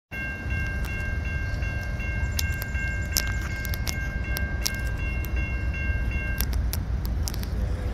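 Railroad grade-crossing warning bell ringing steadily, stopping about six and a half seconds in, over a low rumble.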